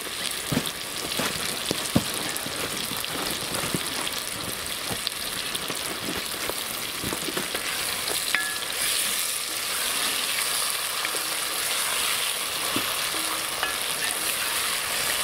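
Shallow stream trickling over stones, with small splashes and drips as hands wash something in the water.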